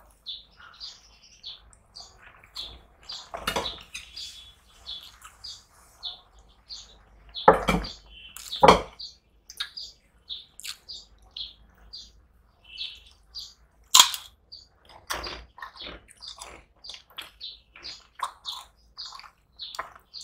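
Eating by hand from steel plates: fingers mixing rice with fish curry and wet chewing, heard as many short, high clicks and smacks two or three times a second. A few louder crunches or knocks stand out, the sharpest about two-thirds of the way through.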